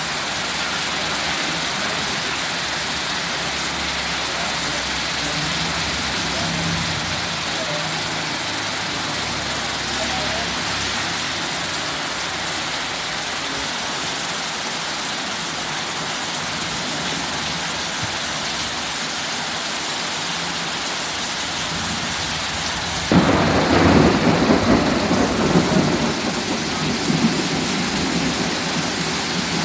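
Heavy rain falling steadily, with a sudden loud clap of thunder late on that rumbles and fades over several seconds.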